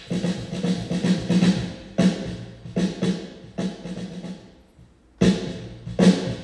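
Snare drum played at a soundcheck: a quick run of strokes over the first second and a half, then single hits about every 0.8 seconds, a short pause, and two more hits near the end.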